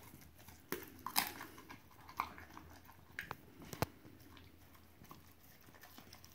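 Husky chewing on rotisserie chicken bones: a handful of sharp, irregular crunches of bone between its teeth, the sharpest about four seconds in.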